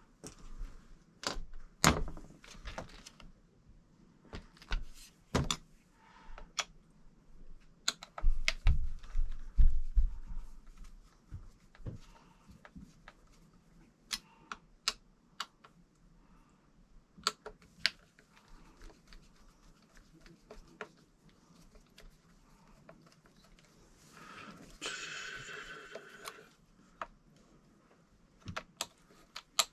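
Scattered sharp clicks, taps and knocks of small parts and tools being handled on a workbench, with a cluster of louder knocks about a third of the way in. Near the end comes a noisy sound that lasts about two seconds.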